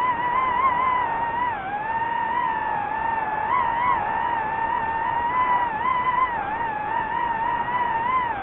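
DJI FPV drone's motors and propellers whining steadily, the pitch wavering up and down as the throttle changes.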